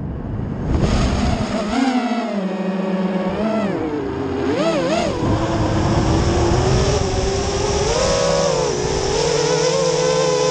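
Realacc X210 FPV quadcopter's 2300 kV brushless motors and three-blade props whining, the pitch rising and falling with the throttle. It starts low, climbs about a second in, wobbles quickly up and down around the middle, and holds a higher, steadier whine near the end.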